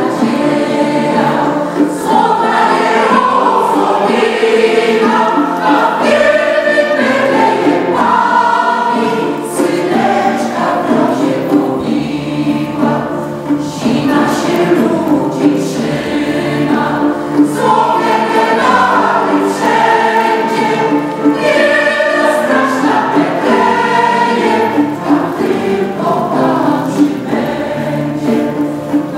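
A mixed choir, mostly women's voices, singing together without a break.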